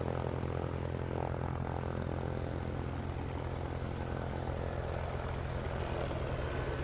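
Twin-engine turboprop airliner in flight, its propellers giving a steady low drone.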